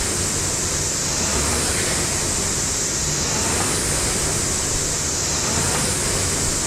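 Air-resistance rowing machine's fan flywheel whooshing steadily, swelling and easing with each stroke about every two seconds.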